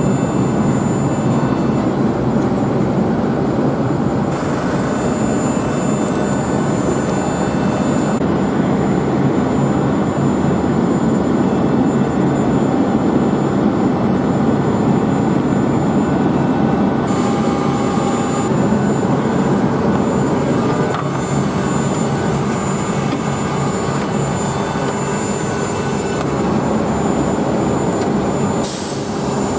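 Steady jet-engine noise around an airport apron: a constant low rumble with a thin high whine over it.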